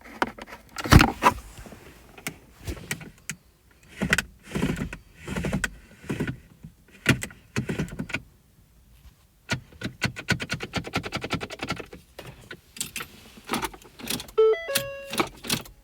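Car with a DPS6 dual-clutch transmission failing to start: repeated clicks and knocks with a run of rapid clicking around the middle, no engine running, then a beeping warning chime near the end. The no-start is the sign of a fully failed transmission control module.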